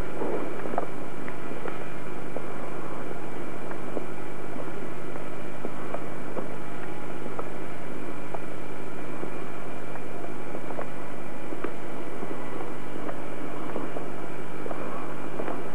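A steady engine-like rumble with a constant low hum and scattered light clicks.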